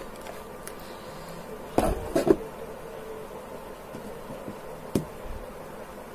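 A cardboard smartphone box and its inner tray being handled on a wooden table: a quick cluster of knocks about two seconds in and a single tap near five seconds, over a steady background hiss.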